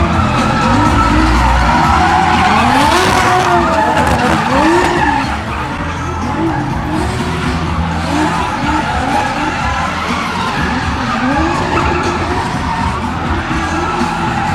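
Several drift cars running together, engines revving hard with their notes rising and falling over one another, and tyres skidding as they slide in a tandem train.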